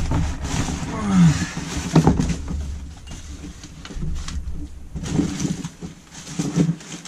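Rustling and crinkling of plastic and paper packaging, with handling knocks, as a carburettor is pulled out of its cardboard box and set down on newspaper. The noise is busiest in the first few seconds and gets quieter after that.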